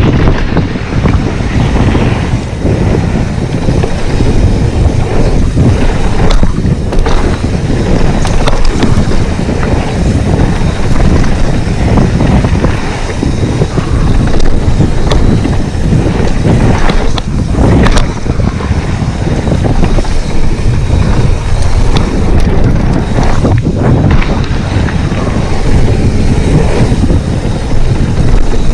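Wind buffeting an action camera's microphone during a fast mountain-bike descent on a dirt trail, with the tyres rolling over the dirt and a few sharp knocks and rattles from the bike over bumps.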